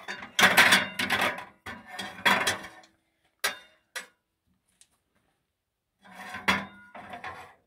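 Metal kitchen tongs clacking and scraping against plates as asparagus spears are laid on them, in short clattering bursts. A couple of single clicks follow, then a pause of about two seconds before the clatter starts again near the end.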